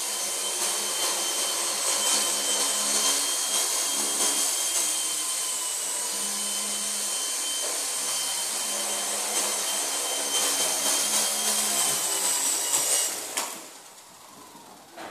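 Small electric MT200 RC helicopter's motor and rotors whining steadily in flight, the pitch wavering slightly. About 13 seconds in the sound drops off sharply as it lands and the motor is cut, leaving a faint spin-down.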